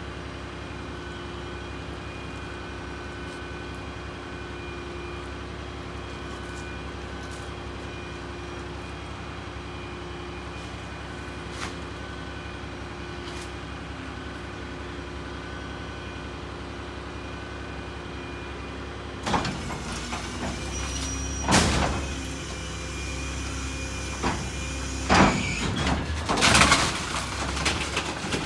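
Rear-loader garbage truck idling with a steady hum. About two-thirds of the way through, the low engine sound rises and several sharp metallic bangs and clanks follow, the last ones the loudest.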